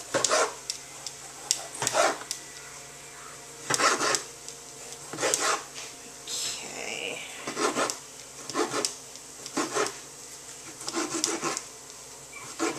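Chef's knife chopping tomato on a plastic cutting board: a dozen or so uneven cuts, each blade knocking on the board about once a second.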